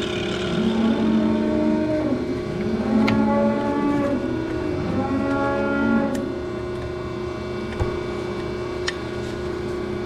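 Cow mooing: several long, level calls in the first six seconds, over a steady low hum. A few light clicks come later.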